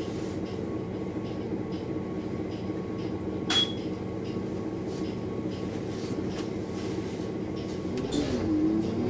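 Iveco Urbanway 12 city bus engine running steadily, heard from inside the passenger cabin, with faint regular ticking and one sharp click with a short high ding a little over a third of the way in. Near the end the engine note begins to rise as the bus accelerates.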